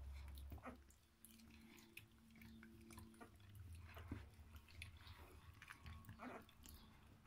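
Faint wet mouthing and chewing of young kelpie puppies gnawing at a fleece tug toy, with scattered small clicks and smacks.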